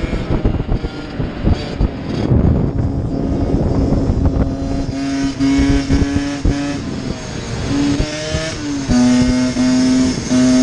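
Small two-stroke dirt bike engine running at high revs while riding. Wind noise on the microphone dominates at first, then the engine's steady buzzing note comes through. Its pitch rises and drops back about eight seconds in, and it breaks up rhythmically near the end.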